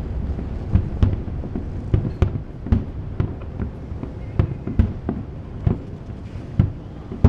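Fireworks display: aerial shells bursting in quick succession, a rapid run of sharp bangs with low rumbling echoes.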